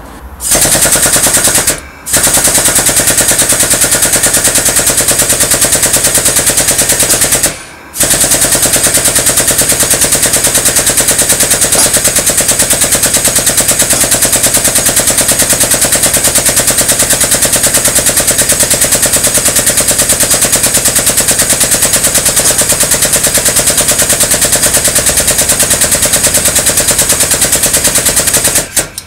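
Air-powered wrench hammering rapidly and loudly as it drives a broaching press, pushing a high-speed-steel keyway broach through a cast-iron pulley bore on the final cutting pass. It pauses briefly twice, about two and eight seconds in, and stops just before the end.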